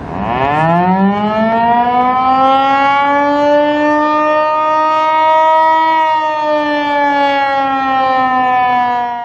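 Outdoor warning siren winding up to a steady wail in about a second, holding, then sagging slightly in pitch near the end before cutting off.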